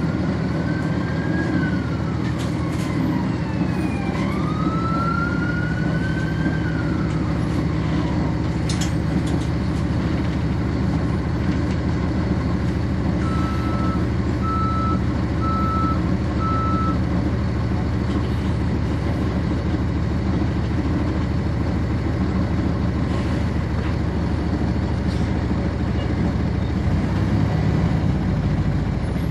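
Cummins ISC diesel in a 1999 NovaBus RTS transit bus idling steadily, heard on board. A siren wails up and down through the first eight seconds or so. About halfway through there are four short beeps.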